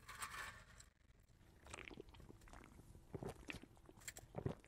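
Faint chewing and mouth clicks from someone eating a mouthful of patty melt.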